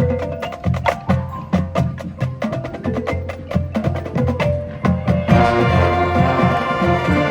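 High school marching band playing: rapid sharp percussion strikes over sustained low notes, then a fuller sustained chord from the whole band coming in about five seconds in.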